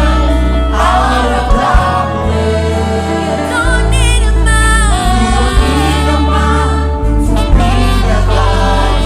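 Gospel choir singing over a backing band, with a steady bass line and occasional drum hits.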